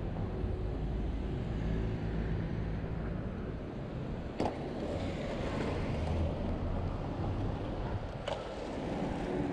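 Street ambience with passing car traffic: a steady low rumble, broken by two sharp clicks, about four seconds in and again near the end.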